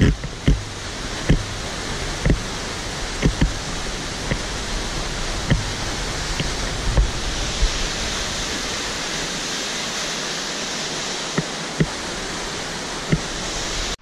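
Steady rushing of the São Jorge river's waterfall pouring into the sandstone canyon below, with a dozen or so short, scattered taps.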